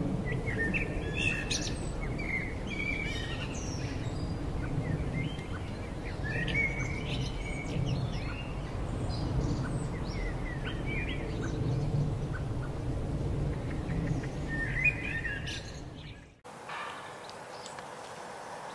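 Birds chirping and calling in many short, repeated notes over a steady low rumble of wind on the microphone. About three-quarters of the way through, the sound cuts abruptly to a quieter background with only faint chirps.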